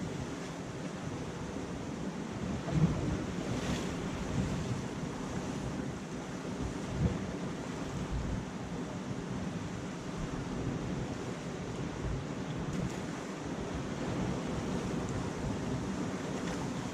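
Sea surf washing against a rocky shore, with wind buffeting the microphone and a few soft low thumps.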